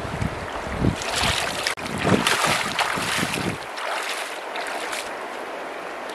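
Bare feet splashing as a person wades through a shallow, rocky river, over the steady rush of the flowing water. The splashing stops about three and a half seconds in, leaving the even sound of the stream.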